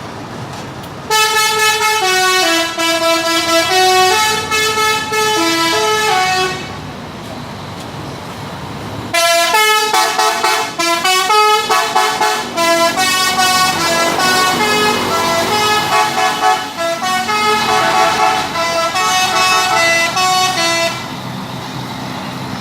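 Indonesian 'telolet' bus horns, multi-trumpet air horns playing melodies of stepping notes. One tune plays from about a second in to about six seconds; a second, faster run of notes starts about nine seconds in and goes on until near the end, where only quieter vehicle noise remains.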